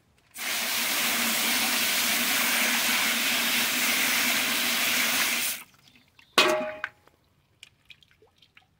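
Garden hose spray nozzle jetting water onto ore gravel in a mesh sifting screen: a steady hiss for about five seconds that cuts off suddenly. About a second later there is a brief sharp clatter, then faint drips.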